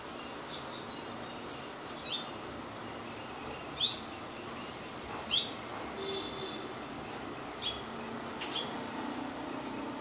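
Small birds chirping: about six short, sharp chirps spaced a second or two apart, the loudest about five seconds in, over a steady background hiss.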